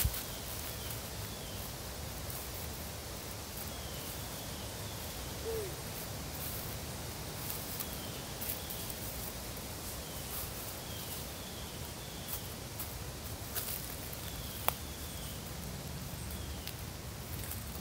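Dry leaves and plant stems rustling and crackling as they are picked and handled on the forest floor, over an outdoor background with short bird chirps repeating now and then. One sharp click about fifteen seconds in.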